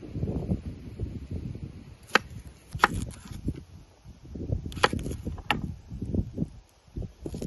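Kitchen knife knocking sharply on a wooden cutting board while onions are trimmed and peeled: four crisp knocks, two close together and two more a couple of seconds later, over a low rumble.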